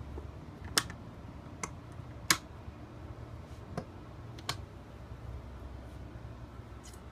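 Sharp clicks and knocks of the backrest's metal arms and hardware being handled and fitted together on a workbench: about five separate clicks over a few seconds, the loudest a little past two seconds in, over a low steady hum.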